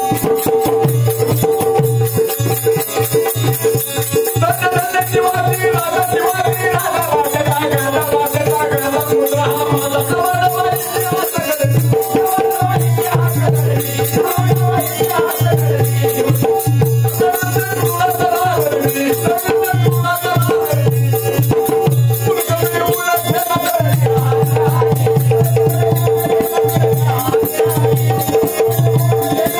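Marathi shahiri folk music: a steady held drone note over a rhythmic drum beat and fast rattling percussion, with a wavering melody line that comes in about four seconds in and continues on and off until a little past twenty seconds.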